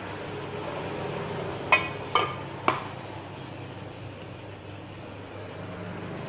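Metal tin of epoxy resin being closed: three sharp metallic clinks about half a second apart, about two seconds in, as the lid is tapped down.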